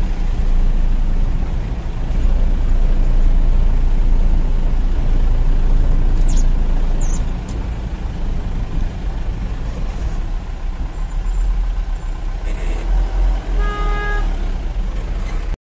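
Loud, steady low rumble and rushing of the Teesta river running in flood, brown and churning with rapids. A vehicle horn sounds briefly near the end.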